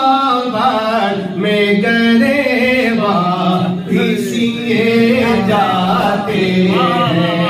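A man singing a naat, an Urdu devotional poem, in long held notes with wavering, gliding ornaments.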